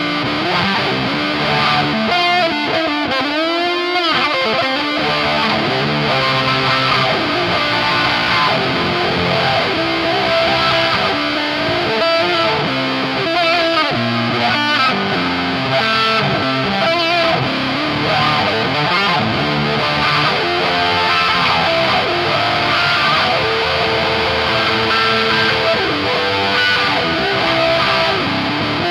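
Les Paul-style electric guitar played through a Dolamo D-2 fuzz pedal and a Dunlop 535Q mini wah: a fuzz-distorted riff played without a break, with sweeping wah tones about two to four seconds in.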